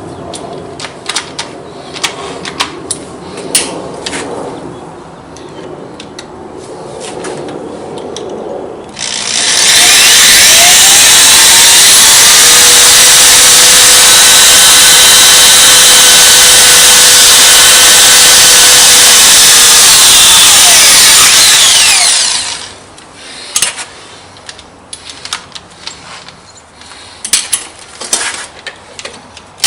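Electric hand drill running loudly for about twelve seconds while drilling a mounting hole in the lathe. It spins up near the start and winds down near the end. Before and after it come scattered clicks and knocks of tools being handled.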